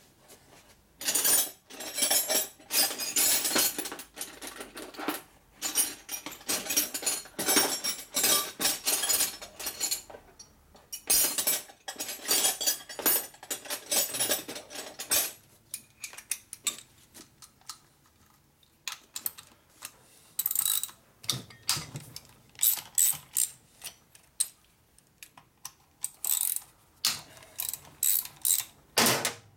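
Ratchet wrench clicking in many short bursts, dense through the first half and sparser near the end.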